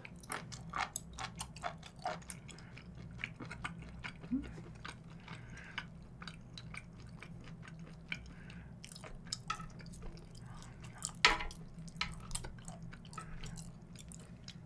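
Close-miked chewing of grilled beef intestines (gopchang), with wet mouth clicks and smacks and the odd tap of metal chopsticks against the grill pan. The sharpest click comes about eleven seconds in, over a faint steady low hum.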